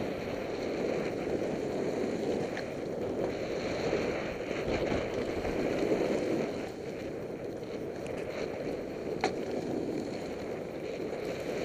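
Steady rush of wind on the microphone mixed with the hiss of snow sliding through fresh powder as the filmer rides down the slope, swelling a little midway, with a few faint clicks.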